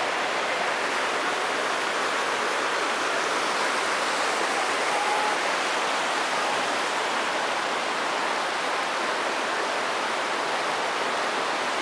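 A rocky mountain creek rushing over stones and small cascades, a steady even sound of running water.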